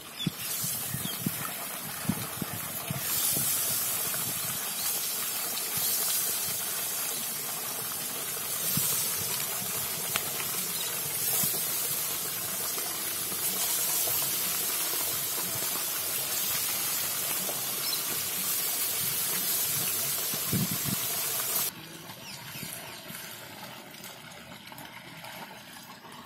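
Small masala-coated red snapper (sankara meen) frying in hot oil in a small pan, a loud steady sizzle. The sizzle drops off abruptly about three-quarters of the way through.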